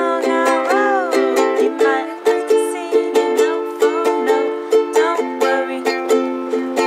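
Ukulele playing a lively tune: plucked notes and strummed chords in quick, even strokes.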